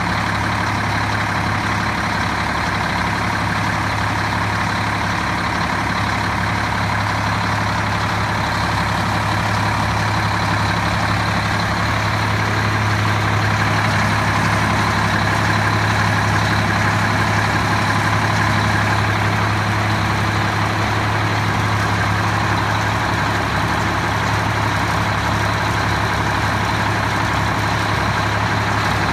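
A fire engine's diesel engine idling steadily.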